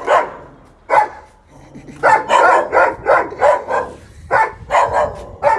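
Dogs barking angrily in quick runs of several barks, with short pauses between the runs.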